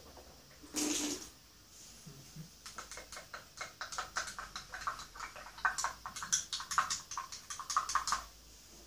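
Rinse water spat out into a plastic bucket about a second in, then a toothbrush swished and knocked rapidly inside a cup of water to rinse it: a quick run of clicks, several a second, for about five seconds.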